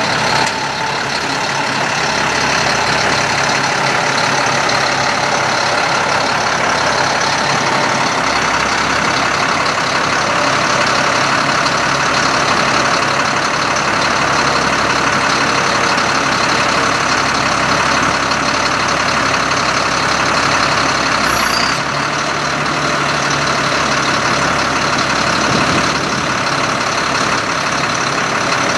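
Truck engine running steadily while the hydraulic dump body is tipped up. A short click comes about 21 seconds in, after which the low hum changes.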